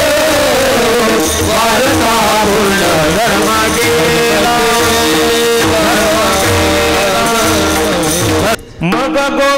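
Men singing a Varkari kirtan melody (chal) together into microphones, with brass hand cymbals (taal) clashing in a steady rhythm and low drum beats underneath. The sound breaks off briefly near the end, then the singing resumes.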